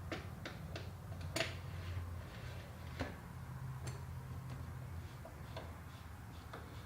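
Scattered light clicks and taps as the plastic air filter cover of a Stihl FC110 edger is handled and fitted back on, the sharpest click about a second and a half in, over a faint low hum.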